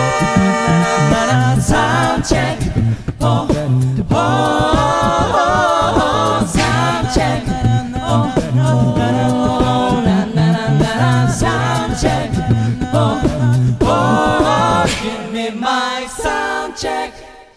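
Male a cappella group singing wordless close harmonies over a pulsing sung bass line, with vocal percussion hits throughout. The voices drop away near the end and the song stops.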